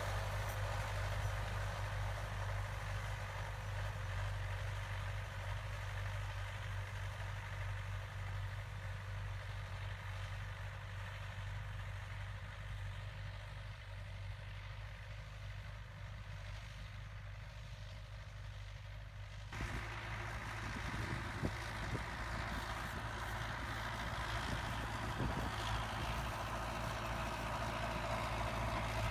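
Belarus 820 tractor's four-cylinder diesel engine running steadily under load as it pulls a tillage implement through the soil. The sound changes abruptly about two-thirds of the way through.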